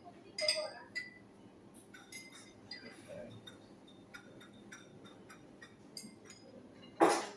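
Cutlery clinking and tapping against plates and glasses in scattered light strikes, busiest in the first second, with a louder noisy burst near the end.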